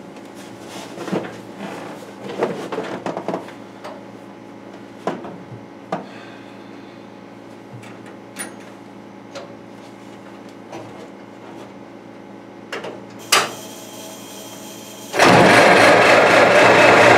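Scattered clicks and knocks of someone climbing into a 1927 Ford Model T and working its controls. About 15 seconds in, the Model T's four-cylinder side-valve engine starts abruptly and runs loudly.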